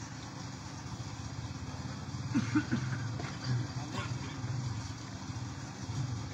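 A steady low hum with a faint murmur of voices, with no recitation.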